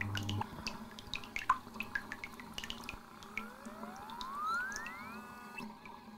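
Musique concrète soundtrack: scattered sharp drip-like clicks, then about three seconds in a layered tone glides steadily upward and levels off into a held pitch.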